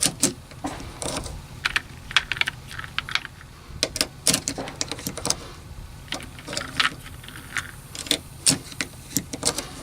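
UpLULA magazine loader being pushed down and released on a 9mm pistol magazine, with cartridges pressed in one after another: a series of short, sharp plastic and metal clicks coming in small irregular clusters.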